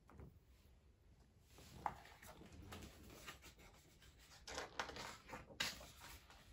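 Faint rustling and handling of a large hardcover picture book as its pages are turned, with a small tick about two seconds in and the rustling loudest about five seconds in.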